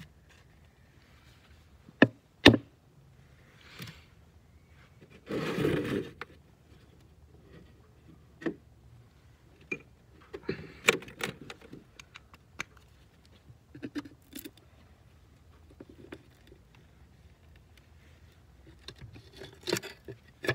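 Gloved hands working loose a bolted steel cover plate packed with frozen mud on a mini excavator's track frame: two sharp knocks about two seconds in, a scraping rustle around five to six seconds, then scattered knocks and scrapes.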